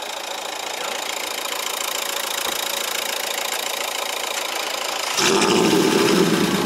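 Car engine idling steadily; about five seconds in, a louder, deeper engine sound sets in abruptly.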